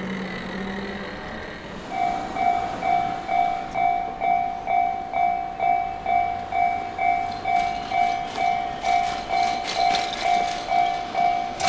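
Japanese level-crossing warning bell starts ringing about two seconds in: a steady, evenly repeating electronic 'kan-kan' at a little over two strikes a second, warning of an approaching train. Some clattering builds in the last few seconds.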